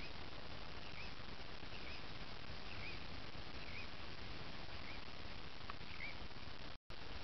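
A bird calling over and over, one short chirp about once a second, over a steady rushing hiss of open-air background noise. The sound drops out completely for an instant near the end.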